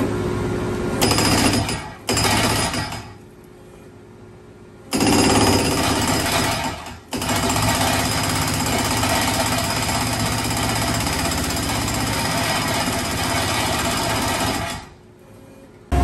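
Hydraulic breaker on a Husqvarna DXR remote-controlled demolition robot hammering reinforced vault concrete in bursts. It stops for a couple of seconds about 2.5 s in and pauses briefly near 7 s, then hammers steadily until shortly before the end. Between bursts the robot's hydraulic power pack runs steadily.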